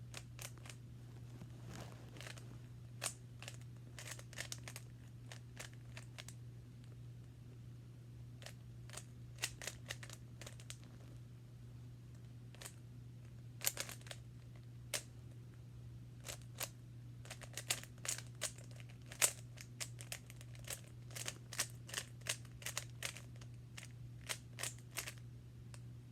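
Rubik's cube being turned by hand: irregular plastic clicks and clacks of the layers, some louder than others, over a steady low hum.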